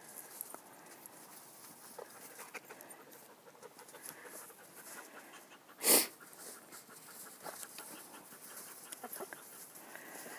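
Dog plowing along on its belly through snow: snow crunching and scraping in small irregular crackles, with the dog's breathing. One sudden loud burst of noise about six seconds in.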